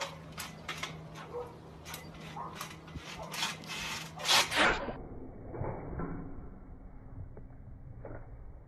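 Trampoline springs creaking and the mat thumping in a rhythm of bounces, a few a second. After about five seconds the sound turns muffled and fainter.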